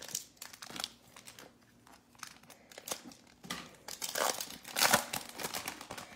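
Foil wrapper of an Elite football trading-card pack being torn open and crinkled by hand, in scattered crackles, loudest about four to five seconds in.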